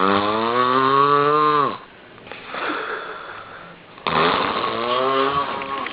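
A person snoring: two long, buzzing snores about four seconds apart, with a quieter breath between them.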